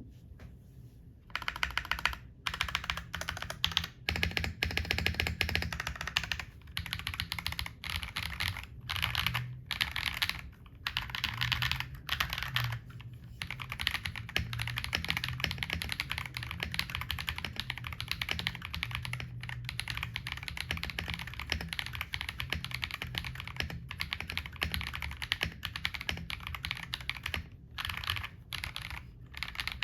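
Fast, continuous typing on a Feker IK75 75% mechanical keyboard with KTT Milk Yellow linear switches, a deep "thocky" keystroke sound. It starts about a second in, with a few brief pauses between bursts.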